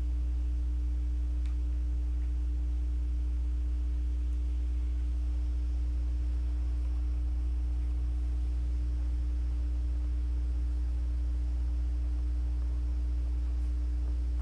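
A steady, unchanging low hum with a fainter steady tone above it.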